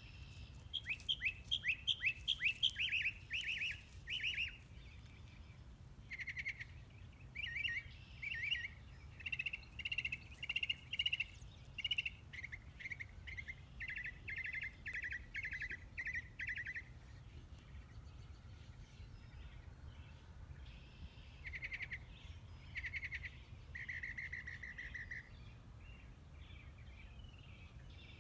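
Songbirds singing and chirping: a quick run of falling notes in the first few seconds, then repeated short chirp phrases through the middle, and a few more chirps near the end, over a low steady background rumble.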